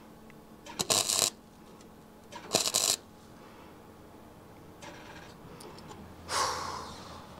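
Gasless flux-core MIG welder arcing in two short crackling bursts, laying tack welds on thin car-body sheet metal, then a third, quieter burst near the end.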